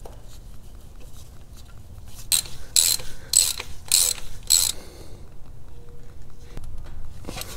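Ratchet wrench clicking in five quick strokes, about two a second, as a transmission cooler line fitting sealed with Teflon tape is tightened back into the transmission case. Fainter ticks from the tool come before and after the strokes.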